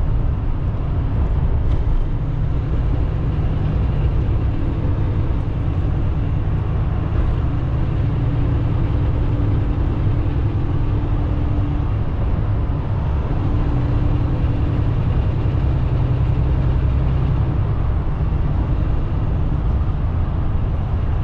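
Semi-truck's diesel engine and tyre noise, a steady low rumble heard from inside the cab while driving at road speed. A faint steady hum comes in and out through the middle.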